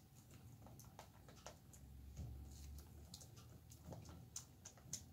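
Faint, irregular clicks and light scrapes of a utensil against a stainless steel mixing bowl as a thick glue-and-cornstarch gesso mixture is stirred.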